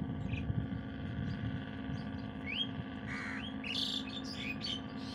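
Crows cawing and other birds chirping in a run of short calls from about halfway in, over a steady low drone of distant boat engines.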